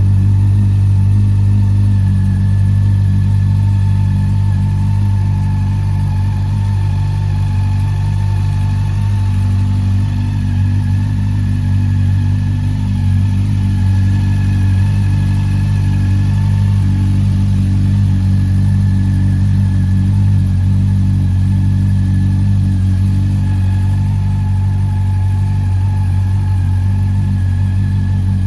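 Honda CB400 Super Four's inline-four engine idling steadily through a Moriwaki aftermarket silencer, holding an even, low note with no revving.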